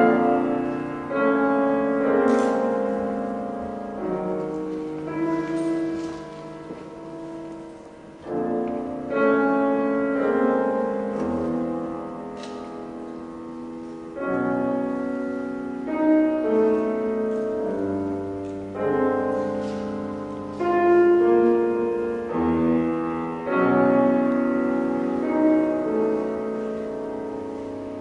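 Live chamber ensemble of violin, flute, clarinet, cello and piano playing a contemporary classical piece, held notes and chords in phrases that swell and fade. The hall's heavy reverberation blurs the sound.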